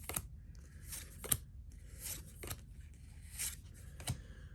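Pokémon trading cards being slid off a pack one by one: about five short, crisp card flicks.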